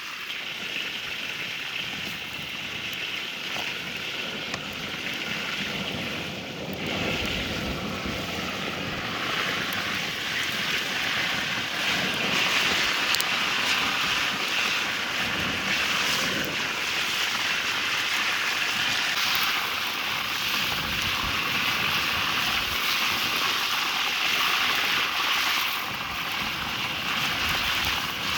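Fish frying in hot oil: a steady sizzle with faint crackling that grows fuller about a third of the way in.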